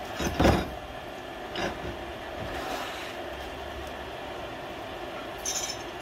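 A bunch of metal door handles dunked and swished in a tray of water: a loud splash about half a second in, then smaller splashes and metal clinks, over a steady mechanical hum.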